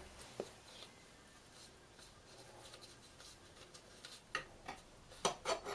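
Faint metallic clicks and rubbing from a Triumph Bonneville five-speed gearbox's selector mechanism being worked by hand between neutral and first gear. The sharpest clicks come in a quick run of three or four near the end.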